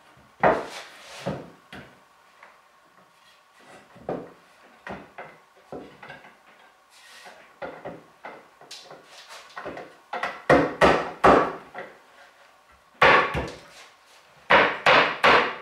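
Solid wooden bench-top board being knocked down by hand onto the dowels in the leg tops: a series of sharp wooden knocks, scattered at first, then in quick runs of blows around the middle and near the end.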